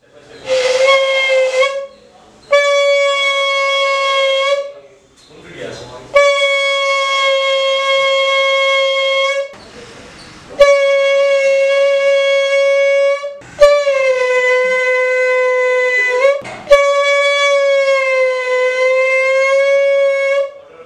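Homemade membrane horn, a balloon stretched over the mouth of a plastic bottle and blown through a straw, sounding a buzzy, horn-like steady note six times in long blows with short breaks between. On the later blows the note sags and wavers slightly in pitch.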